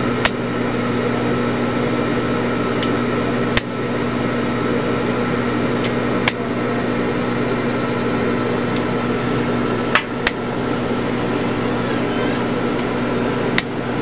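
A disposable lighter being struck again and again, about ten sharp clicks at uneven intervals, over a steady electrical hum.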